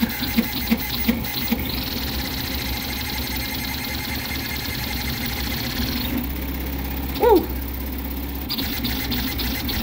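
Vz235 CoreXY 3D printer running a high-speed print at 1200 mm/s with 50k acceleration: its stepper motors and racing toolhead buzz steadily. A high whine comes and goes, from about a second and a half in until about six seconds, and again near the end.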